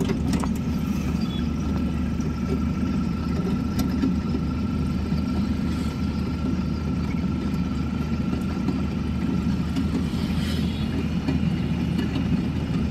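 Steady low engine and road rumble of a moving vehicle, heard from inside its cabin, with a faint high whine through most of it.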